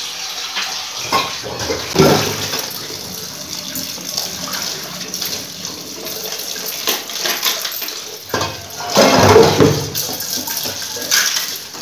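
Kitchen tap running into a stainless-steel sink while dishes are rinsed under it, with steel and plastic dishes knocking and clattering, loudest about two seconds in and again around nine to ten seconds in.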